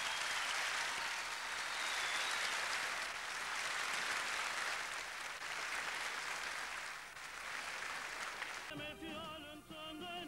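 Audience applauding steadily in a large hall. About a second and a half before the end it cuts abruptly to a singer with strong vibrato.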